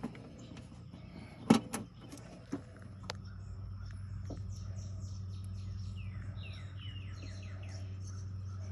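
Sharp clicks of wire terminals being handled and pushed onto the replacement ignition coil, the loudest a pair about a second and a half in. A steady low hum sets in about three seconds in, and a bird gives a quick run of falling chirps near the end.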